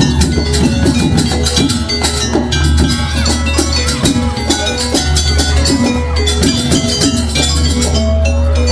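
Live jaranan ensemble playing a fast, dense rhythm on drums and struck metal gamelan percussion, with a steady low drone underneath.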